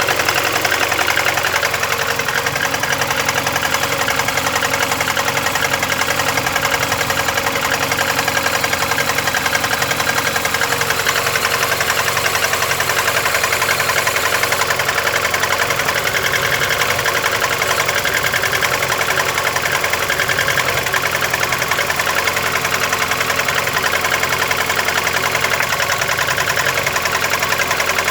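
VAZ 21099 four-cylinder engine idling cold with a steady, rapid metallic knock from inside the engine. The knock is the fault being shown: it began faintly at idle and grew louder after about 50 km of driving.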